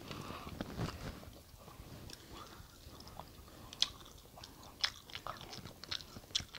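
Close-up eating sounds: chewing and biting, with scattered small clicks and ticks, typical of utensils and mouth sounds at the table.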